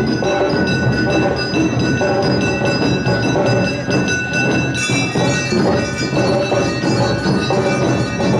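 Awa-odori narimono festival music: drums beating a steady rhythm under the bright metallic ringing of kane hand gongs. The high ringing tones change abruptly about five seconds in.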